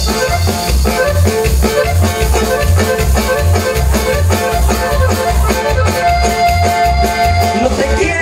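Band music: an instrumental passage of a Mexican dance song, with an accordion melody over guitar and a steady bass beat; one note is held for over a second near the end.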